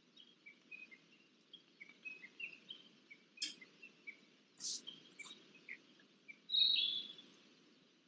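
Birds singing in a beech forest: a run of short chirps and twitters, with louder calls about three and a half and five seconds in and a longer call near seven seconds. Under them lies a low, steady background noise.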